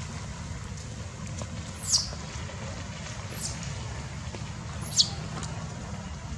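Baby macaque giving three short, very high-pitched squeals, each falling in pitch, about a second and a half apart, over a steady low background rumble.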